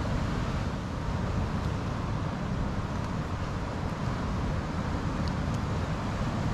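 Steady noise of ocean surf and wind on the microphone, heaviest in the low end, with a few faint ticks in the second half.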